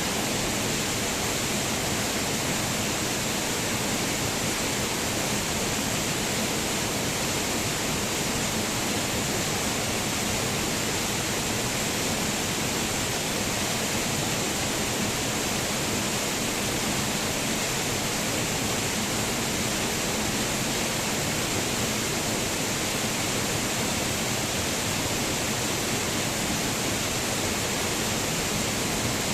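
Waterfall: a steady, unbroken rush of falling water, even throughout.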